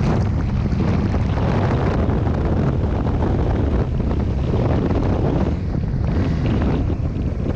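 Heavy wind buffeting on the microphone of a moving BMW R 1200 GS Adventure motorcycle, with the bike's boxer-twin engine running underneath. The noise is steady throughout.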